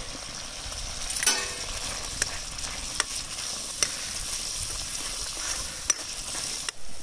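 Oysters in a spiced onion-tomato gravy sizzling in a pan over an open fire, nearly done, while a utensil stirs and clicks against the pan; the loudest scrape comes about a second in. The sizzle cuts off near the end.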